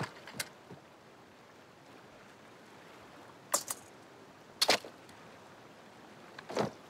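A steel army helmet set down on gravel, then a leather belt with ammunition pouches dropped beside it: a few separate knocks and clatters, the loudest about two-thirds of the way in, over a faint outdoor hiss.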